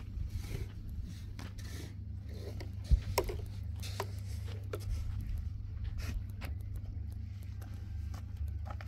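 Steady low rumble with scattered light clicks and scrapes, and one sharper knock about three seconds in: handling noise from a moving camera.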